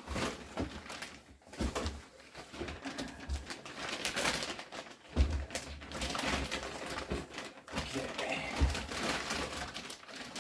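Chair packaging being handled and unwrapped: irregular rustling and scraping, with a few dull thumps, the loudest about five seconds in.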